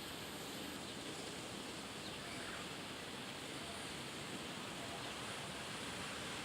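Cold wind blowing steadily, a constant rushing noise with no gusts standing out.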